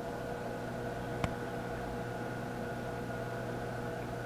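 Steady low mechanical hum with hiss, with a single sharp click about a second in.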